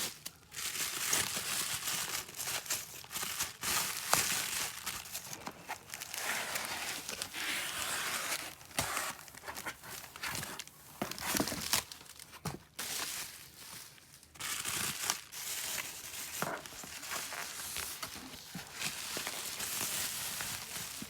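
Packaging being handled and pulled open: continuous irregular rustling with many small sharp clicks.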